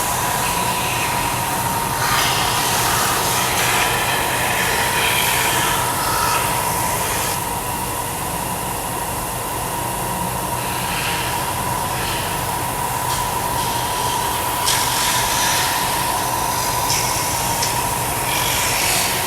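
Bench-top belt sander running with a steady hum, a wooden cutout pressed against the belt where it wraps over the end roller to soften its edges; the rasp of the abrasive on the wood comes and goes every few seconds as the piece is pressed and eased off.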